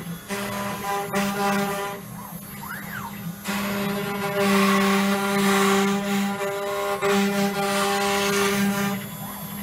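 CNC router running a cut: its axis motors whine in steady tones, with a pitch that sweeps up and falls back as the gantry moves, while the spindle runs. From about three and a half seconds in, the bit cutting into the board adds a louder hiss.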